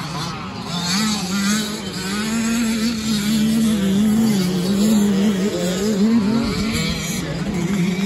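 Several motocross dirt bike engines revving as the bikes race around the track, their pitch rising and falling as the riders throttle through the corners.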